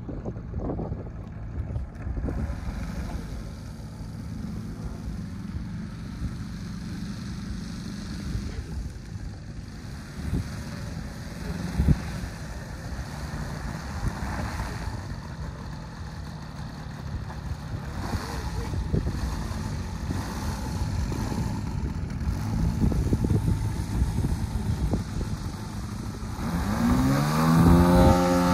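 DA-200 four-cylinder boxer engine of a 40%-scale Extra 330 LX model airplane running at low throttle while it taxis. About twelve seconds in there is a single knock. Near the end the engine is throttled up for the takeoff roll, its pitch rising sharply and getting louder.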